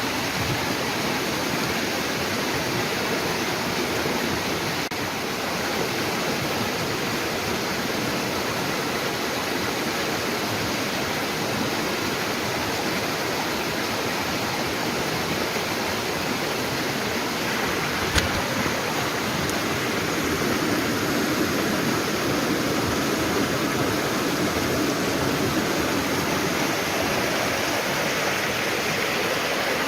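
Steady rushing of running water, like a stream or small waterfall, with one sharp click about eighteen seconds in.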